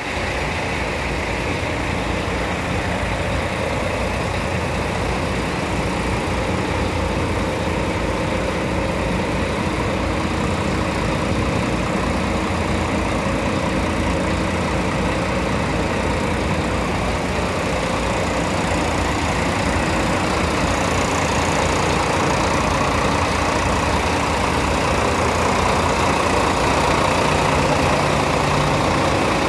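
Engine idling with a steady, even drone.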